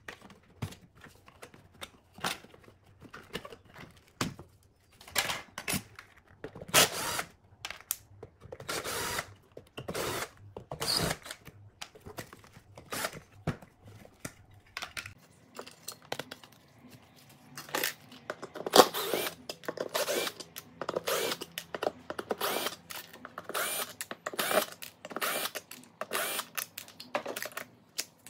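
Cordless drill-driver backing out the speaker drivers' mounting screws in many short trigger bursts, mixed with knocks of the parts being handled and lifted out of the cabinet.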